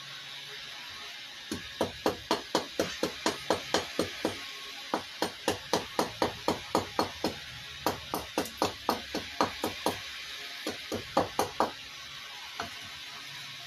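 Hatchet chopping at a wooden kuksa blank held on a stump block: a steady run of sharp wooden knocks, about three a second, then a few scattered strikes near the end.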